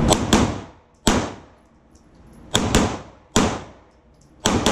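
A string of handgun shots fired in quick pairs and singles, about eight in all, each crack followed by a short echo.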